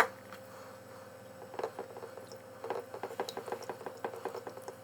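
A sharp click, then small wet squishing clicks of liquid laundry detergent being worked onto a dirty sun visor to lift the grime.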